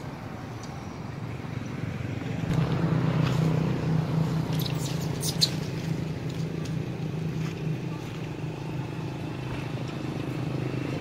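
Steady hum of a running motor vehicle engine that comes up about two and a half seconds in and holds, with a few sharp clicks near the middle.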